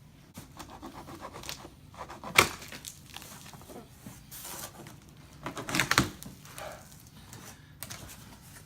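Cardboard shipping box being handled and opened: scraping, rustling and tearing, with two loud sharp knocks, one a little over two seconds in and a cluster around six seconds.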